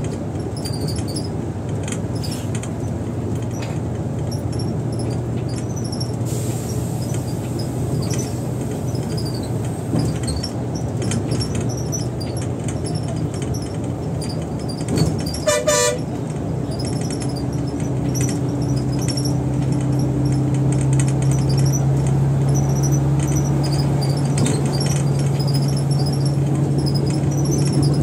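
Volvo bus driving, its engine and road noise a steady low drone. A vehicle horn gives one short toot a little past halfway, and after it the engine note grows louder and steadier.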